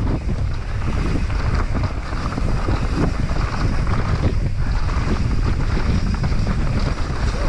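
Wind rushing over the camera microphone as a Propain Tyee trail bike descends fast on a dirt trail, with the tyres rolling over the ground and the bike rattling over bumps in quick, uneven knocks.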